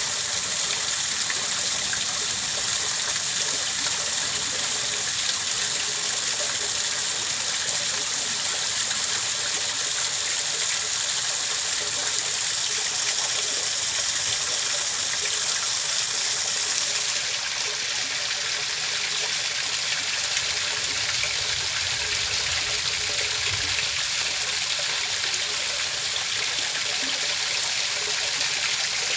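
Continuous running water, a steady hiss with trickling; the brightest part of the hiss drops a little a bit past halfway through.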